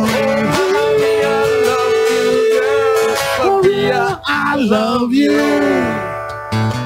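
Live guitar-duo music: acoustic and electric guitar playing a slow ballad between verses, with a lead melody holding a long note for about three seconds, then bending and sliding down, and the music thinning near the end.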